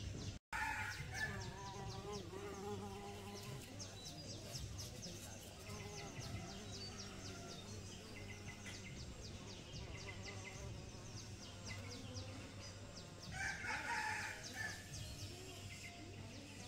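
A rooster crowing twice, once just after the start and again near the end, over continuous high chirping in the background.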